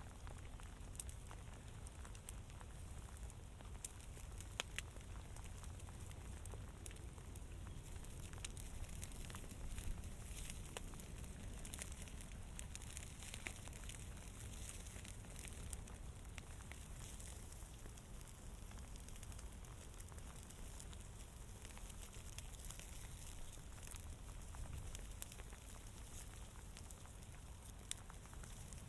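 Fire crackling, with scattered sharp pops and snaps over a steady low hiss and rumble.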